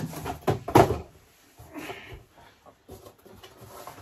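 A cardboard box being picked up and handled: a few sharp knocks and thumps in the first second, the loudest about a second in, then a brief rustle and small clicks as it is opened.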